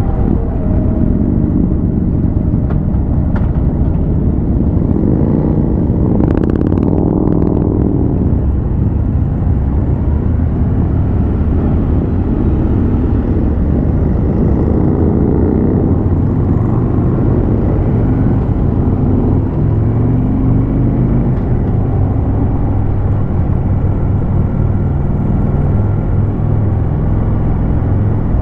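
Harley-Davidson Road King's V-twin engine running under way, over a steady low wind rumble, its pitch dropping and climbing again several times as the bike slows and pulls away.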